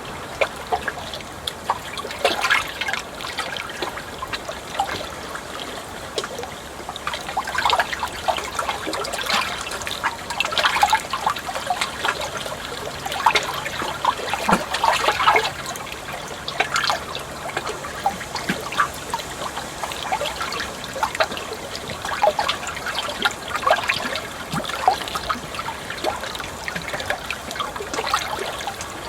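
Flowing water trickling steadily: a continuous, irregular patter of small splashes and gurgles.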